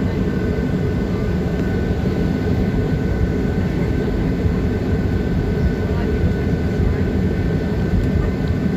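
Steady cabin noise inside a Boeing 737-700: a constant low rumble of the CFM56 engines and airflow with a faint steady whine on top.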